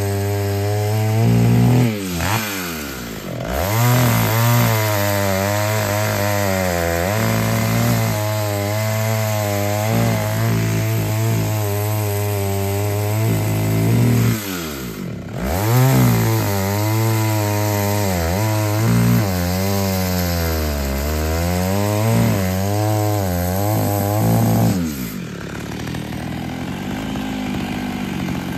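Taiga 245 two-stroke petrol chainsaw running at high revs and cutting wood, its engine pitch wavering under load. Twice the revs sink sharply and climb back, and near the end the engine drops to a lower, quieter running.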